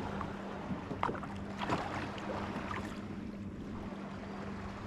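Faint water lapping against a kayak hull, with a few light taps about one and nearly two seconds in, over a steady low hum.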